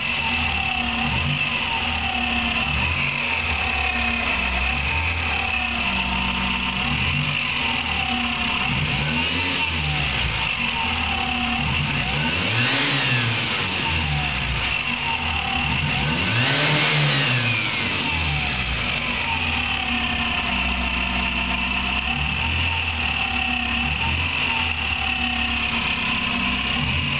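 Volkswagen Voyage engine idling with a steady high squeal and a repeating chirp, which the owner likens to a bird singing in the engine. The engine is revved briefly twice, about halfway through. The noise does not come from the alternator, its bearing, the water pump or the timing-belt tensioner, and it grows louder as the engine gets hot.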